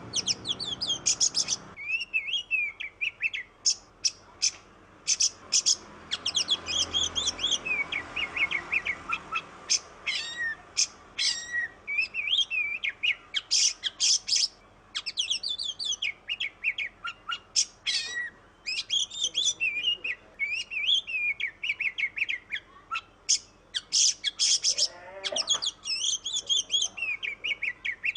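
Oriental magpie-robin (kacer) singing a continuous, varied song of quick chirps, rapid note series and whistled phrases.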